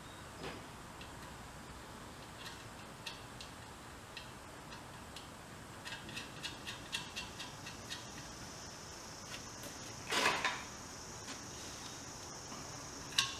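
Scattered light clicks and taps of small metal parts being handled and fitted by hand on a steel portable air tank, with a quick run of clicks about six seconds in and one louder, half-second noise about ten seconds in.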